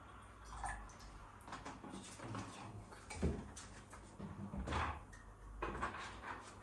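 Knocks and clatters of a stainless electric kettle being handled after filling, with the loudest thump a little over three seconds in.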